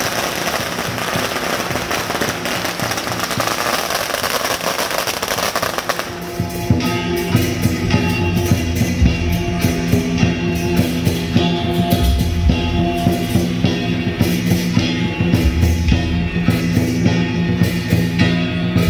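A string of firecrackers crackling rapidly and densely, which stops abruptly about six seconds in. Loud rock-style music with a steady beat and guitar follows.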